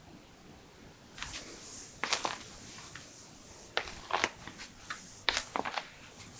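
Footsteps on a floor indoors: about six separate steps at an uneven pace, each a short scuff or crackle.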